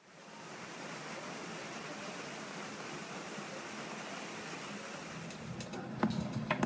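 Water pouring from a large fountain spout and splashing into a pool: a steady rush that fades in at the start. About five and a half seconds in it gives way to a low hum with two sharp taps.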